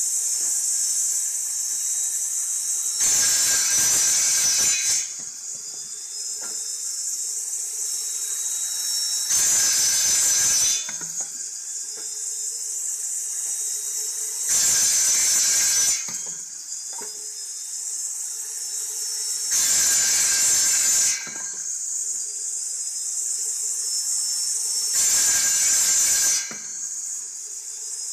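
An angle grinder converted into a bench-mounted bamboo cut-off saw, its disc spinning with a steady high whine. Five times its disc cuts through green bamboo, each cut a loud, harsh stretch of about a second and a half. After each cut the whine climbs back up in pitch as the motor recovers from the load.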